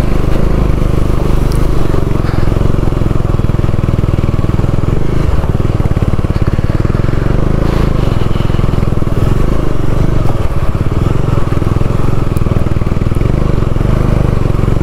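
Motorcycle engine running steadily under load as the bike climbs a rough, stony dirt track, heard from on the bike itself.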